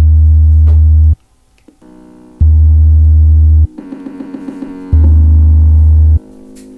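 Synthesizer music: a loud, deep bass note held for about a second, repeating three times, with quieter keyboard phrases in the gaps.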